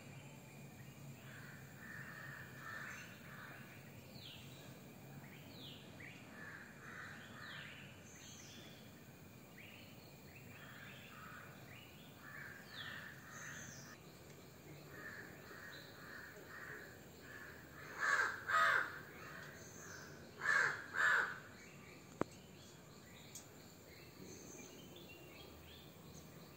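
Crows cawing: two loud pairs of harsh caws about two-thirds of the way through, over softer repeated bird calls and small chirps in the background, with a single sharp click shortly after the caws.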